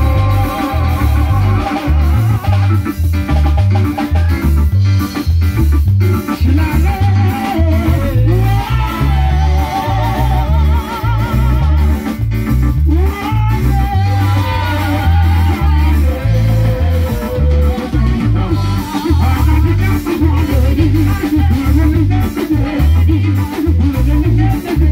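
Live band playing loudly through a PA: a heavy, pulsing bass guitar and drum kit, with vocalists singing over it.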